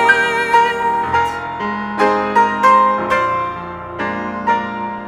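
Piano playing a short instrumental interlude of a slow Christian song, single struck notes about two a second over a sustained accompaniment, growing softer near the end.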